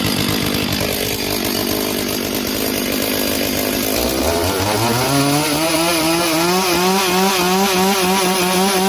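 Freshly started two-stroke chainsaw idling, then revved up about four seconds in and held at high revs, its pitch wavering slightly.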